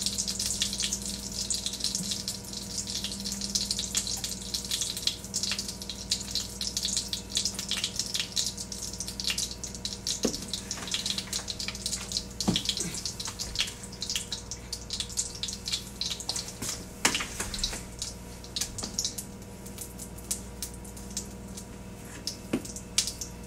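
Butter and olive oil sizzling in a skillet on an electric glass-top stove: a steady hiss full of small crackling pops, thinning out near the end, with a few sharper clicks along the way.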